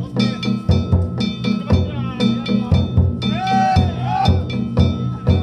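Danjiri float's festival music (narimono): a large taiko drum beaten in a fast, steady rhythm, about three strokes a second, with the steady ringing of hand-struck brass gongs (kane).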